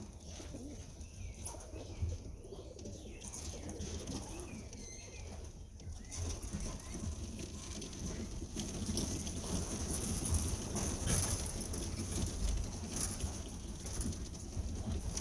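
Young homing pigeons at the loft cooing, then a growing rush of flapping wings from about six seconds in as the flock is let out to fly.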